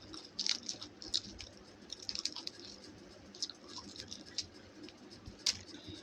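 Close-up eating sounds: irregular short, wet clicks and smacks of chewing a meal of rice, dal and mashed potato, a few a second in uneven clusters.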